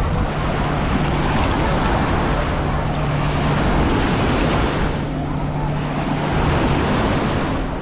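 Sea waves washing onto a sandy beach, with wind buffeting the microphone; the surf noise swells and eases twice. A low steady hum comes and goes underneath.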